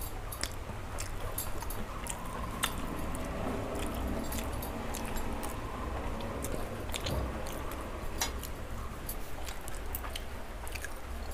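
A person chewing paratha and vegetable curry close to the microphone, with many small wet mouth clicks scattered throughout, over a low steady hum.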